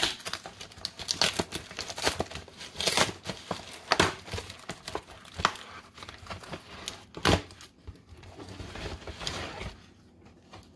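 Brown paper mailing envelope being handled and opened: crinkling, rustling paper with sharp crackles and some tearing, easing off near the end.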